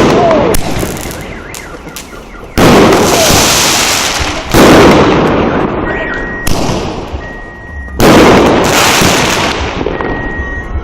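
Fireworks firing shells one after another: about six loud bangs, one every one to two seconds, each followed by crackling that dies away.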